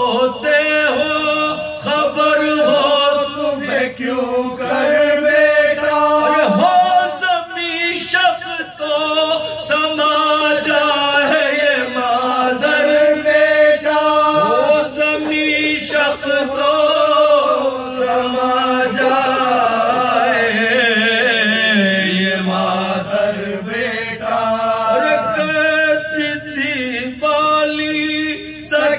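Soz, a Shia mourning elegy in Urdu, chanted by male voices in a continuous, held melodic line.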